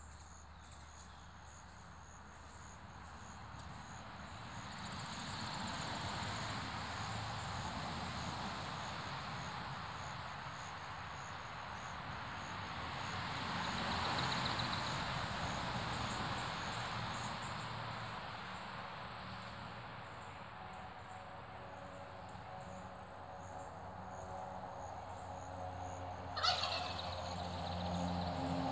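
Outdoor ambience with a steady high insect buzz and a hiss that swells and fades twice. About two seconds before the end comes one short, loud rattling call that falls in pitch, typical of a gobble. Right after it a low engine hum comes in.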